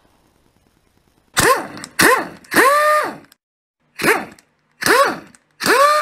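Produced intro sound effects: six short hits, each a sharp click followed by a quick rising tone that levels off, the third and last held a little longer.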